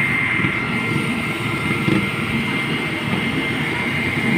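Fire truck's diesel engine running steadily to drive its water pump, with a thin steady high whine over the low engine noise.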